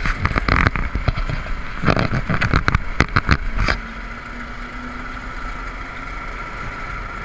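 Go-kart engine running as the kart rolls down a gravel road, with a clatter of knocks and bumps for the first few seconds, after which the engine settles into a steady drone.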